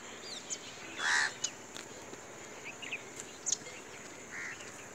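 Birds calling: a loud harsh call about a second in and a fainter one near the end, with short high chirps between them over a steady high hiss.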